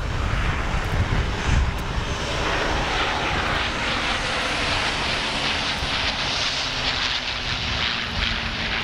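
The Avro Lancaster's four Rolls-Royce Merlin V12 engines running as the bomber flies low past. The sound grows fuller and brighter from about three seconds in as it comes closest.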